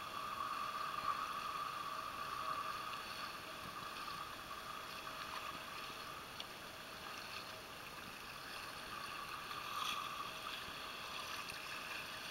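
Shallow sea water lapping gently with light wind, and a faint steady hum over it.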